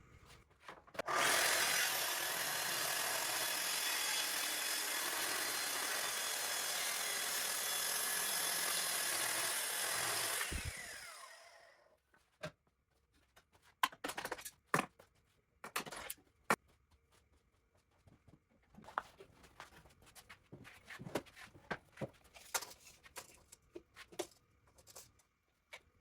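A power tool runs loudly and steadily for about nine seconds, then winds down with a falling whine as it is switched off. Scattered light knocks and clicks follow.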